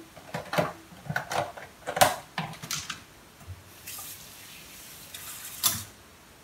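Plastic containers and dishes knocking and clattering at a kitchen sink, the loudest knock about two seconds in, then the tap running for about two seconds, ending with a sharp knock.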